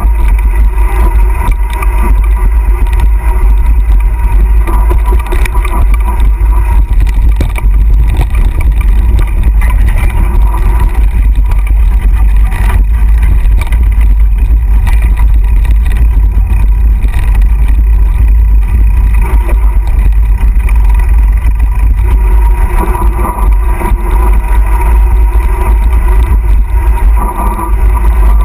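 Loud, steady wind rumble on an action camera's microphone while riding a mountain bike fast down a dirt singletrack, with tyre and trail noise mixed in.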